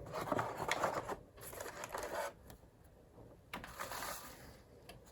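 Rustling and light clicking of packaging and plastic phone parts being handled during unpacking, in two main spells, the first lasting about two seconds and the second coming around four seconds in.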